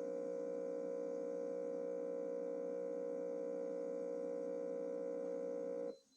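Steam mop's pump running with a steady electric buzz, then cutting off abruptly near the end as the water tank runs dry and the refill lamp comes on.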